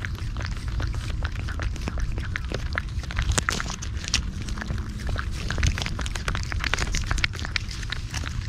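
Heavy typhoon rain: a dense, irregular patter of drops over a steady low rumble.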